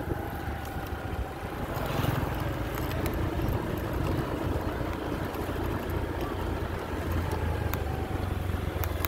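Motor scooter engine running steadily while riding, with wind and road noise on the microphone.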